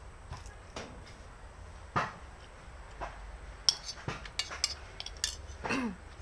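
Eating sounds: a utensil clinking and tapping against a bowl of noodles, with a run of quick clicks in the second half and a short falling sound near the end.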